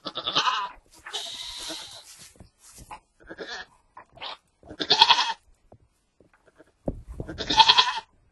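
Goat bleating three times, at the start, about five seconds in and near the end, with about a second of rustling noise after the first call.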